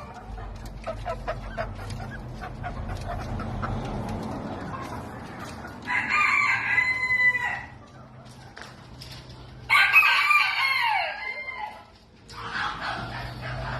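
A rooster crowing twice, each crow a long pitched call lasting about a second and a half, with quieter clucking from chickens before and between the crows.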